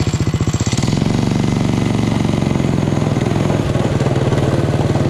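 Stock Briggs & Stratton 5 hp flathead single-cylinder engine on a go-kart running hard, heard close up from the driver's seat; its rapid firing pulses rise in pitch about a second in as it revs up, then hold steady.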